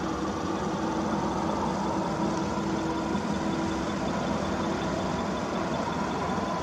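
Steady hum of distant road traffic and engines, with a low engine drone that fades out about two thirds of the way through.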